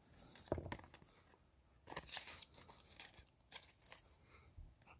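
Faint rustling and light clicks of a cardboard hang tag and a baseball jersey's fabric being handled, loudest about half a second in and again around two seconds.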